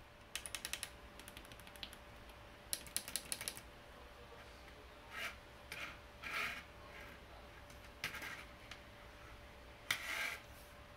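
Keys being pressed on homemade calculator keypads: two quick runs of clicks in the first four seconds, then several separate, shorter presses.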